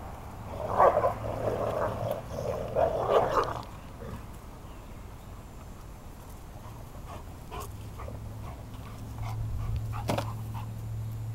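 Dogs growling in rough play while tugging over a frisbee, a rough burst lasting about three seconds near the start. Afterwards only a few faint clicks over a low hum.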